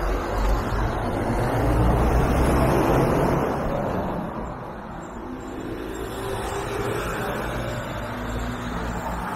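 Road traffic: a car passes close by, its engine and tyre noise swelling to a peak about two to three seconds in and then fading, with traffic hum continuing after.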